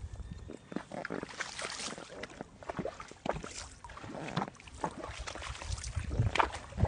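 A horse moving about and nosing at the sand, with irregular knocks and short breathy noises.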